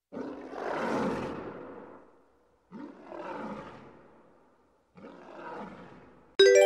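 Lion roaring three times: a long first roar, then two shorter, fainter ones.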